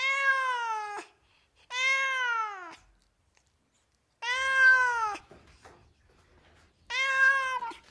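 A domestic cat meowing four times, each meow drawn out to about a second, rising slightly and then falling in pitch at the end; the third is the loudest.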